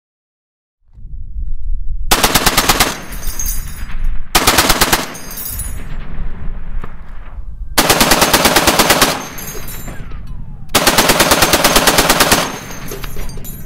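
Browning M2HB heavy machine gun firing .50 BMG on full auto in four bursts, the last two longer at about a second and a half each. The rapid, evenly spaced shots are followed by a rolling echo after each burst.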